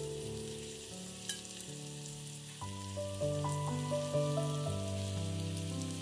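Food sizzling in hot oil in a frying pan, a steady fine hiss, over background music of held notes that change in steps.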